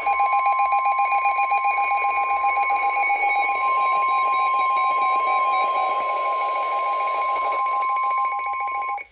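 Emergency alert attention tone for a tornado warning: a loud, steady single pitch near 1 kHz, the 1050 Hz weather-radio warning tone, held for about nine seconds. It has a pulsing beep and a light hiss under it and cuts off abruptly near the end.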